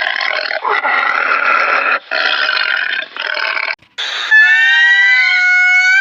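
Animal calls: a harsh, rasping call broken by brief pauses, then, after a break near the end, a long, clear, high-pitched call that rises slowly.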